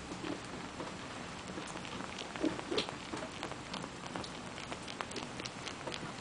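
Irregular soft wet clicks and smacks of a ten-month-old Russian Blue cat suckling at an adult cat's belly.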